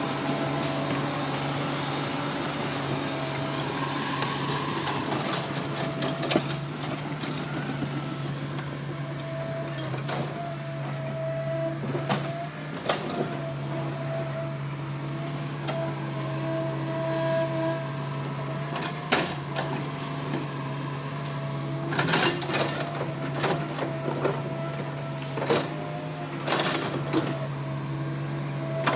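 Heavy logging machinery's diesel engine running steadily, with scattered sharp metallic knocks and clanks that come in quick clusters in the last third.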